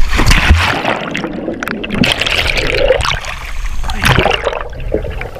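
River water splashing and sloshing in irregular surges, with a low thump about half a second in.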